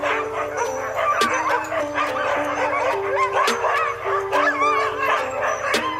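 A yard of chained sled dogs barking, yipping and howling all at once, many voices overlapping, with a few sharper barks standing out. Background music with long held notes runs underneath.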